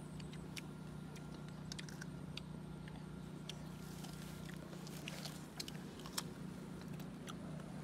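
Scattered crisp clicks of bites and chewing as green star fruit is eaten, the sharpest about six seconds in, over a steady low hum.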